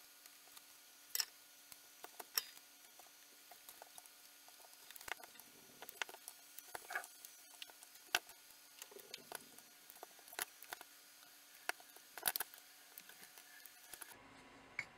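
Faint, scattered light clicks and taps of a soldering iron and hands handling a small assembly of circuit boards during soldering, sped up.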